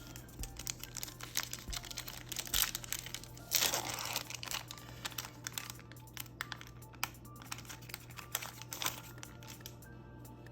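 A Yu-Gi-Oh! booster pack wrapper crinkling as it is handled and torn open, with a longer tearing rustle about three and a half seconds in, then many light clicks and rustles as the cards are handled.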